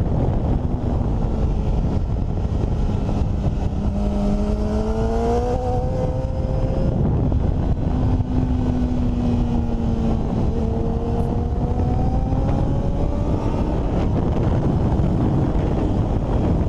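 Sport motorcycle engine at about 130–150 km/h, heard through heavy wind buffeting on an onboard microphone. The engine note rises as the bike accelerates about four seconds in, dips, then rises again about ten seconds in.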